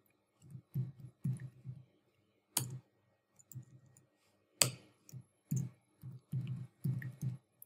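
Computer keyboard being typed on: a string of soft, irregular key taps, with two sharper clicks about two and a half and four and a half seconds in.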